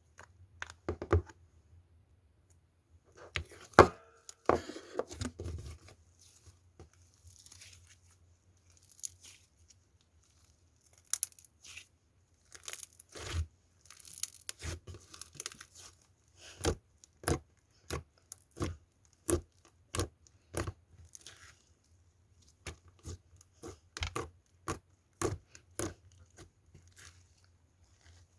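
Slime being stretched and squeezed by hand, giving sticky tearing sounds and a string of irregular sharp pops and crackles. There is a crinkly stretch a few seconds in and a steadier run of pops, about two a second, through the second half, over a faint low hum.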